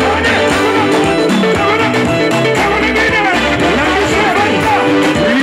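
Congolese dance music: electric guitar, bass and drum kit playing with a voice singing over them.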